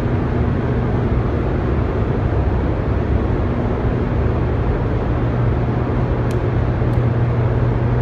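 Hydroelectric generators running in the dam's powerhouse: a loud, steady machine hum with a constant low drone over a dense rumbling noise.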